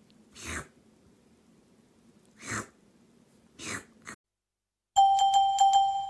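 A cat sneezing three times, short sharp sneezes about a second or two apart. After a short break, chiming glockenspiel-like music starts near the end with a quickly repeated note, louder than the sneezes.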